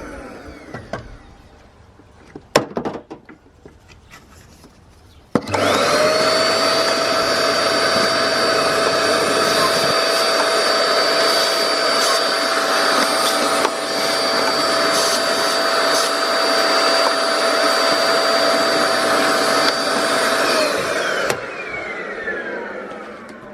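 Vacuum cleaner switched on about five seconds in, its whine rising quickly to a steady pitch, running for about fifteen seconds, then switched off and winding down with a falling whine near the end. A few clicks and knocks come before it starts.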